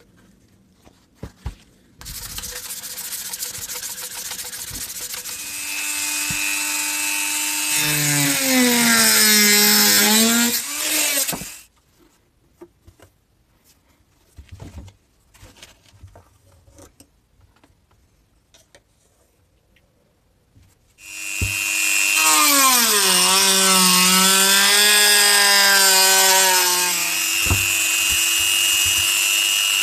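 Flexible-shaft rotary tool with a cutting disc running and cutting PVC sheet, a high grinding hiss over a motor whine whose pitch sags and wavers as it cuts. It runs twice, from about 2 s in to about 11 s in, and again from about 21 s in, with light handling clicks in the pause.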